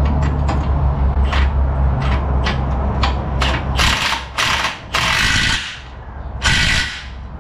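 Cordless impact wrench run in short trigger pulls to snug up bolts, with the two longest hammering bursts near the end.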